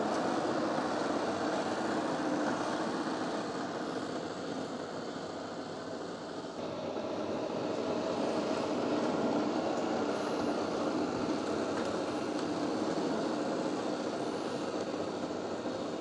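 Shark IQ RV101AE robot vacuum running over carpet at max suction: a steady whir of its suction motor and brushroll that swells and eases slightly as it moves.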